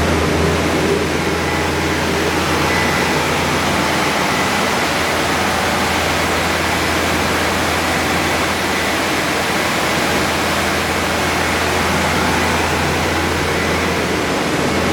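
Three-head wide belt sander running with its sanding heads (25, 20 and 15 horsepower) spinning: a steady, even rush of noise over a low hum, with a faint thin high tone.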